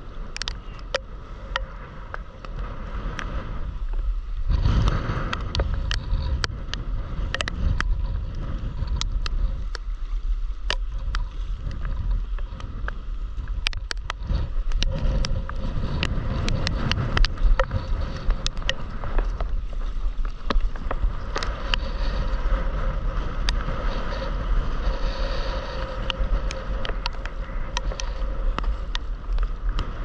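Water splashing and slapping against a stand-up paddleboard as it moves through small sea waves, over a steady low rumble of wind on the microphone, with scattered sharp clicks.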